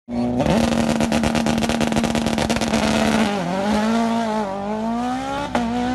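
Fiat 126 prototype race car's engine held at high, steady revs for about three seconds, then dipping and rising again unevenly as the car pulls away.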